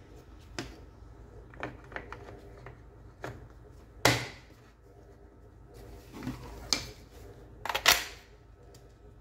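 Irregular plastic clicks and knocks as the housing halves of a Makita cordless drill are handled and closed up, with a sharp knock about four seconds in and a cluster of louder knocks near the end.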